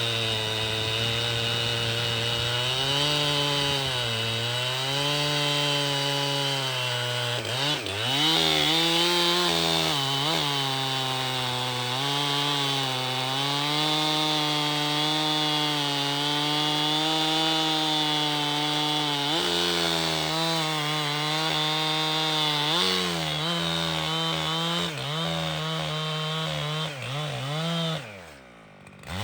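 Echo CS-7310 chainsaw's two-stroke engine running at high revs while cutting wood, its pitch sagging and recovering again and again as the chain loads up in the cuts. Near the end it drops away briefly.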